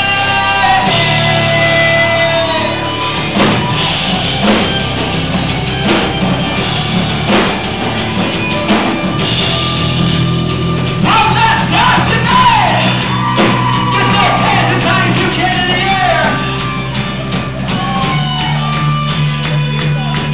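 Rock band playing live: sustained guitar chords and slow, heavy drum hits, with a sung and shouted vocal line coming in about halfway through. It is heard from within the crowd in a large hall.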